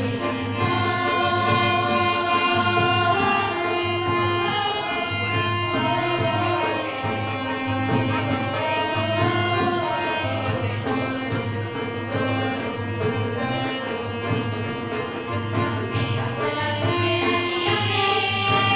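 Music playing: a song with singing over a steady beat.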